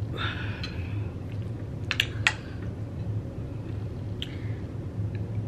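A metal utensil stirs and scoops soft, cheese-coated food in a glass bowl, scraping against the glass, with a few sharp clinks about two seconds in. A steady low hum runs underneath.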